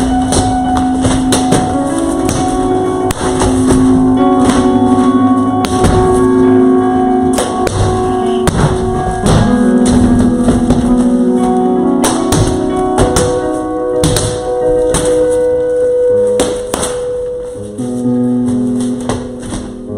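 Slow background music with long held notes, over irregular sharp knocks and bangs of a hammer breaking into sheetrock.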